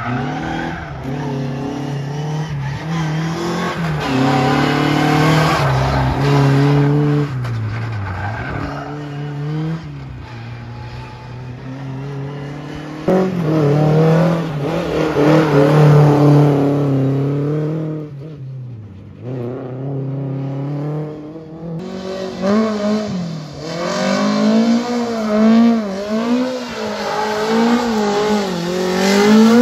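Rally car engines revving hard through a slow, tight corner, one car after another, the pitch climbing and dropping with throttle and gear changes, with some tyre squeal as the cars slide.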